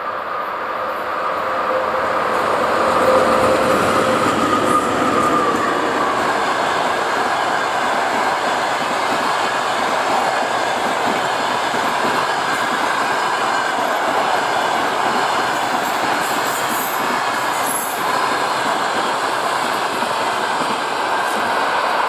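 A VL80T twin-section AC electric locomotive and its passenger coaches passing at speed. A steady hum at two pitches dips slightly in pitch and fades over the first few seconds. After that the coaches' wheels roll steadily on the rails.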